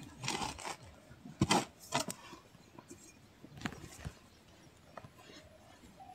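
A few separate knocks and scrapes of digging in earth: a hoe blade chopping into the soil, then hands scratching at the dirt.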